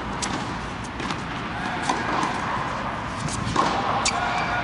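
Tennis balls struck by rackets and bouncing on a hard court: scattered sharp pops, several in a few seconds, under a steady background noise in a large indoor tennis dome.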